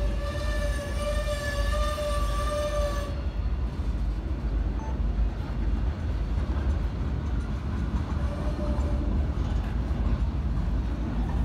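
Freight train of tank cars rolling past below, a steady low rumble of wheels on rail. A high, slightly wavering squeal from the wheels runs over it and stops about three seconds in.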